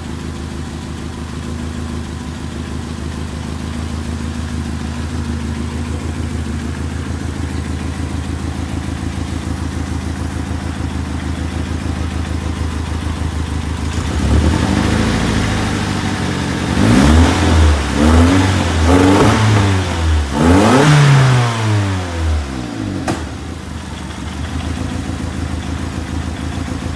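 1994 Infiniti G20t's SR20DE 2.0-litre DOHC four-cylinder engine idling roughly, a rough idle its owner puts down to the engine running rich. About halfway through it is revved in several quick throttle blips, each rising and falling, before settling back to idle.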